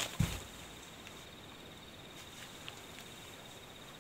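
A chess piece set down on the board with a soft thump just after the start, then quiet room tone with a faint steady high-pitched tone and one small tick later on.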